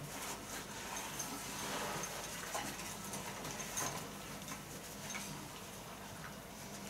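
A whippet eating small pieces of dry food from a ceramic bowl: irregular small clicks and crunches as it picks up and chews the food.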